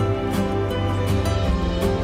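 Background instrumental music with held notes and a light, regular beat.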